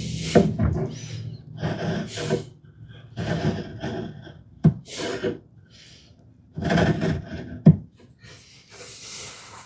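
A marking gauge scraping along cherry wood in about six short strokes with pauses between, scribing hinge-mortise layout lines, with a couple of sharp clicks among them.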